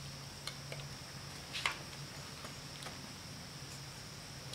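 Steady high-pitched insect trill, like crickets, over a faint low hum, with a few faint clicks and a short scrape about a second and a half in.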